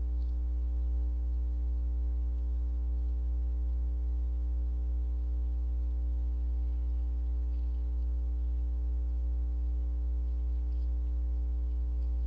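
Steady low electrical hum with several fainter held tones above it, picked up by a security camera's audio.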